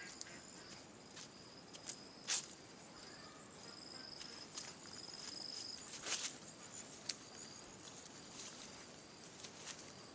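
Insects droning in high, thin, steady tones, with scattered footsteps and rustles of someone walking a forest path; the sharpest knocks come about two seconds and six seconds in.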